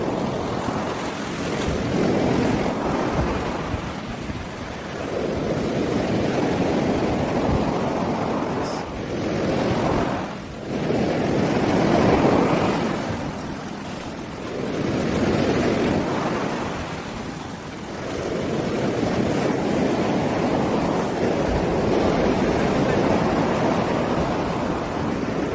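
Sea surf breaking on a beach, the wash swelling and falling away every few seconds, with wind buffeting the microphone.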